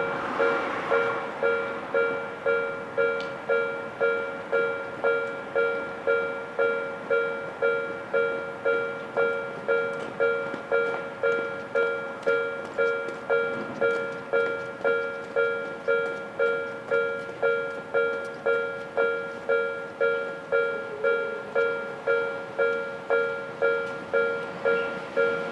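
Railway level-crossing warning bell of the newer electronic type used on the Odakyu line, ringing steadily about twice a second. Each strike is a bell-like ding that rings on as a chord of a few tones.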